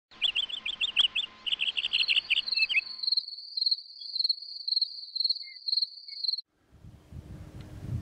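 Crickets chirping: rapid high chirps for the first few seconds, then a steady pulsing trill, with soft low pulses about twice a second beneath it. It cuts off suddenly after about six seconds, giving way to a low outdoor rumble.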